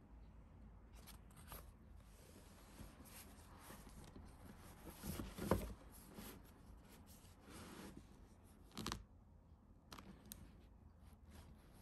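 Faint rustling of paper being handled, with scattered light taps and clicks. A louder tap comes about five and a half seconds in, and another about nine seconds in.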